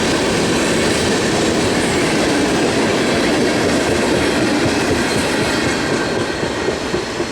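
Freight train of molten sulfur tank cars rolling past, with a steady rumble and wheel-on-rail clatter. The noise begins to fade near the end.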